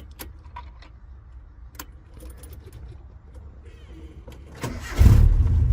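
A few light clicks, then the Nissan D21 pickup's engine is cranked and fires almost at once about five seconds in, settling into a steady low idle. The quick start comes with a newly fitted clutch pedal switch, which the owner had suspected of causing the click-and-no-start on cold mornings.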